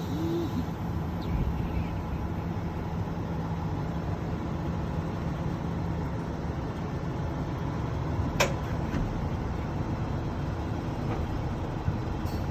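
Semi-truck diesel engine running steadily as the tractor slowly backs a trailer and converter dolly, with one sharp clank a little past the middle.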